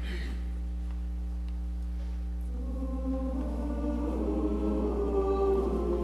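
Mixed church choir starting to sing a cappella about two and a half seconds in, soft at first and growing louder. A steady low hum runs underneath.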